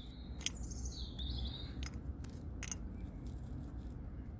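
A few sharp metallic clinks over a steady low rumble, with a brief high warbling chirp about a second in.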